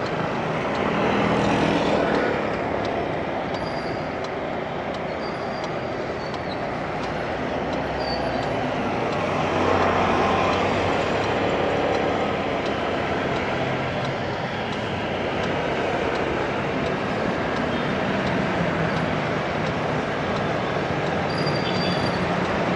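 Motorcycle riding in city traffic: the bike's engine and wind rush on the camera microphone, mixed with the traffic noise of a large bus running close ahead. The level swells a little about two seconds in and again near the middle.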